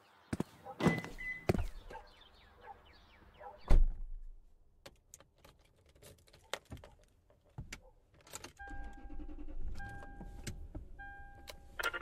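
Scattered clicks and knocks with one heavy thump about four seconds in, then an electronic chime beeping three times over a low rumble.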